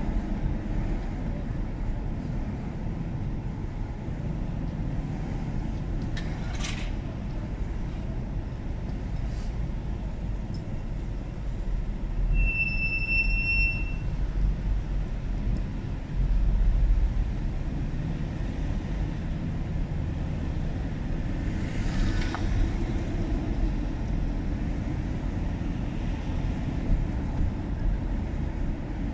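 Car driving on the road: a steady low rumble of engine and tyre noise, with a single high beep lasting a second or so about halfway through.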